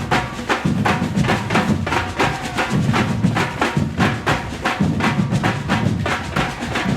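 Batucada drum ensemble playing a fast, steady groove: dense, evenly spaced strokes from high drums and sharp wooden-sounding hits over a low drum pattern that swells about once a second.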